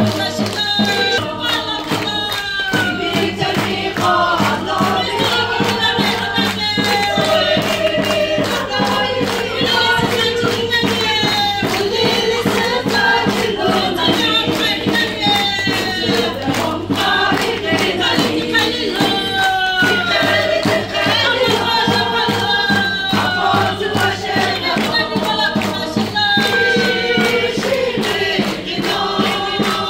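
A congregation singing a worship song together, many voices in unison, with steady rhythmic hand-clapping on the beat.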